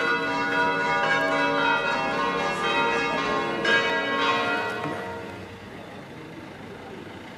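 Church bells ringing, several bells sounding together with overlapping tones and a fresh strike partway through, then dying away over the last couple of seconds.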